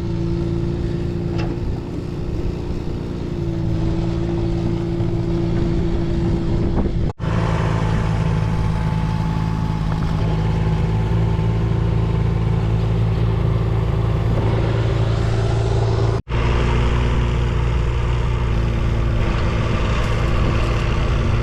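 Excavator's diesel engine running steadily, cutting out for an instant twice, with its note shifting slightly at each break.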